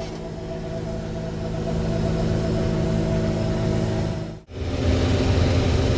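Combine harvester running steadily with an even engine hum. The sound cuts out for an instant about four and a half seconds in and comes back with a deeper, stronger hum.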